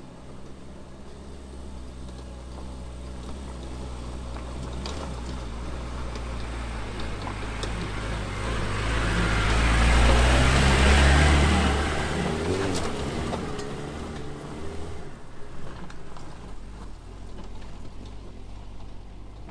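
A 4x4 car driving past off road, its engine and tyre noise swelling to the loudest point about halfway and then fading away.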